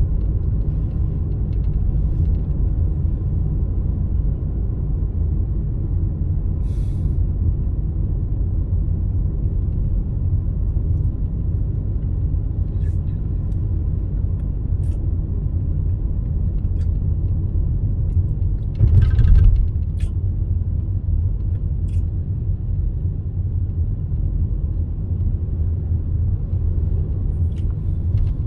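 Road noise of a car being driven, heard from inside the cabin: a steady low rumble of tyres and engine. A short, louder rush of noise comes about two-thirds of the way in.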